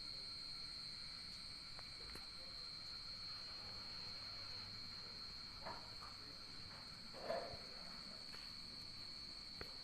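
Insect calling with a steady, unbroken high-pitched buzz. A brief soft rustle or thud comes about seven seconds in.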